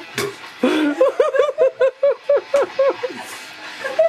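People laughing in a quick run of short ha-ha pulses, with a short noisy burst near the start.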